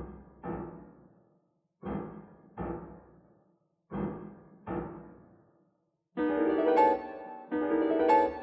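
Solo piano: three pairs of loud struck chords, each left to ring and die away into silence, then from about six seconds in a denser run of loud, ringing chords.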